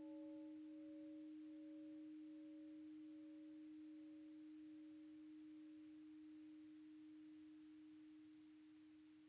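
Faint, long-ringing struck tone of a bell-like instrument in a new-music composition. A low steady pitch dies away slowly while a higher tone above it pulses slowly and fades out about two-thirds of the way through. It is struck again right at the end.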